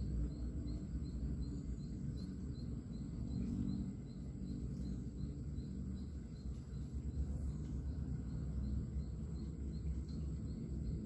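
Outdoor ambience: a steady low rumble with small insects chirping in quick repeats, about three a second, fading after the first few seconds, over a thin steady high insect whine.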